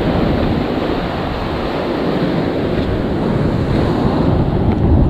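Sea surf washing against a rocky shore, a loud steady rushing with no breaks, and wind buffeting the microphone.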